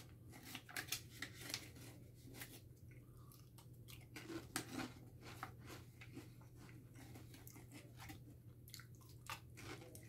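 Someone biting and chewing fresh Pringles Scorchin' barbecue potato crisps, a faint run of irregular crunches.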